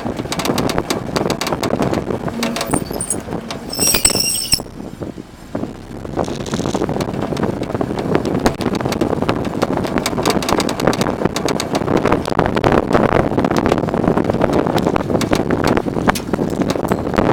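Suzuki Swift ZC33S's rear suspension rattling in rapid clatters as the car drives, amid road and wind noise: the rattle comes from a loose ride-height adjustment lock nut on an Öhlins rear coilover damper. A short high squeal from the metal rear brake pads cuts in about four seconds in.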